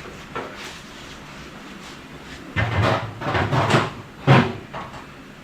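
Sheet metal of a 1941 Chevy pickup's front clip scraping and clunking as it is worked off the frame: a cluster of rough scrapes about halfway in, ending in a sharp clunk.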